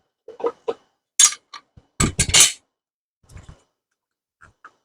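Irregular metal clinks and knocks as parts of an electric concrete saw are handled and fitted together, the loudest cluster about two seconds in.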